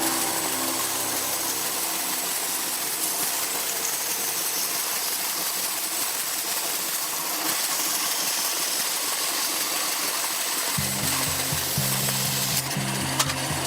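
Background music over a steady hiss, with a rhythmic bass line coming in about eleven seconds in.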